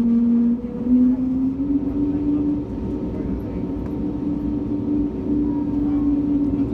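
Airliner's jet engines running at taxi power: a steady hum over a low rumble, its pitch rising slightly during the first few seconds.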